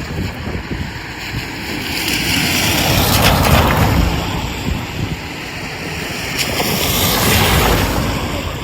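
Strong wind of a snowstorm buffeting the microphone, with a steady low rumble and two gusts that swell up and die away.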